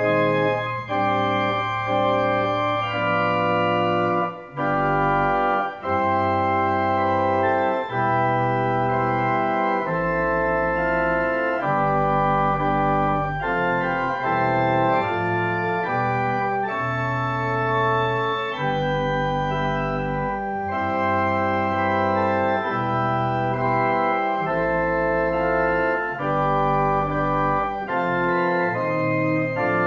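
Organ music: slow, held chords that change every second or two over a deep bass line.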